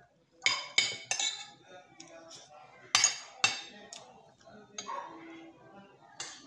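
Metal fork and spoon clinking and scraping against a plate while eating, a string of sharp clinks, the loudest about three seconds in.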